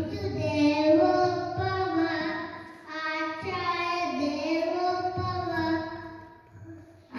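A young boy chanting a shloka in a sing-song melody into a microphone, in two long phrases.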